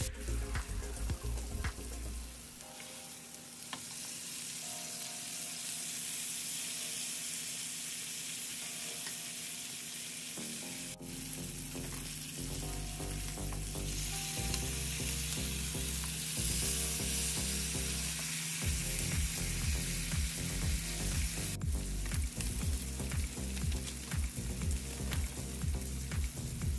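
Bone-in ribeye steaks sizzling steadily in hot oil in a Presto Foldaway electric skillet.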